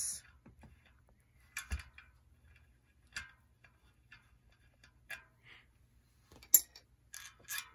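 Scattered metal clicks and clinks of a threaded bearing press being unscrewed from a bicycle wheel hub and taken apart, with one sharper clink about six and a half seconds in.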